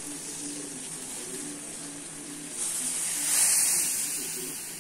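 Water boiling hard in a steel saucepan on a gas stove, a steady bubbling hiss. About two and a half seconds in, the hiss swells sharply as tea leaves go into the pot and it froths up, then it eases back.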